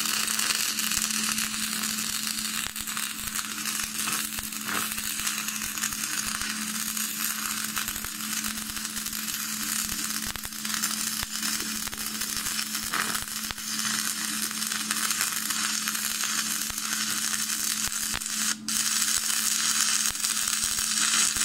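Stick (MMA) welding arc from a 2.5 mm rod electrode burning steadily on 4 mm flat steel: a continuous crackling sizzle with a steady hum underneath. The current is turned down a little from 100 A because the plate is already warm from the first side.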